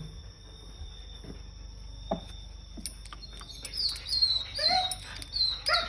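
A dog whining, a short yelp about two seconds in, then a run of high-pitched falling whines in the second half: an excited dog held in a stay.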